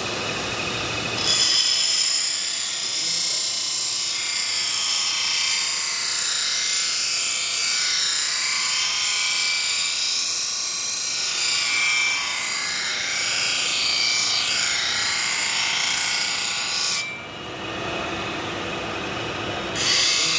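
Steel chef knife blade being ground on a spinning grinding wheel: a loud, high-pitched grinding screech with wavering pitch. It starts about a second in, gives way to a lower, duller sound for about three seconds near the end, then starts again.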